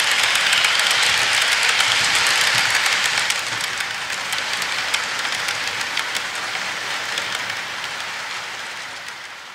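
HO scale model freight cars rolling along the layout track: a steady metallic rolling rush with rapid small clicks from the wheels on the rails and joints. It fades over the last several seconds as the end of the train rolls away.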